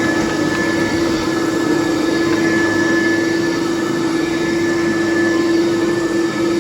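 Kirby Classic III upright vacuum cleaner's motor and fan running steadily: a loud even hum with a high whine above it. The owner expects it to smooth out after a little more running time.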